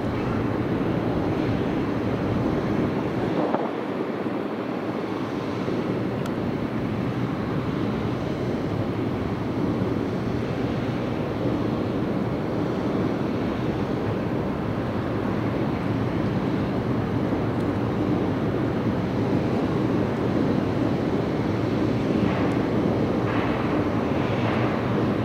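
Submarine's waterline exhaust outlet blasting out a steady jet of steam and spray while its diesel engines run to charge the batteries, a continuous rushing noise that surges a few times near the end.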